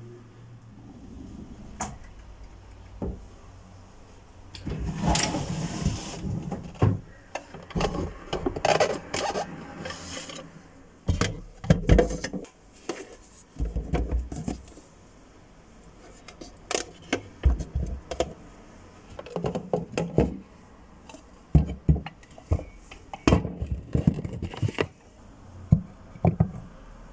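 Irregular knocks and clicks with stretches of rubbing, as of objects being handled against a hard surface in a small room.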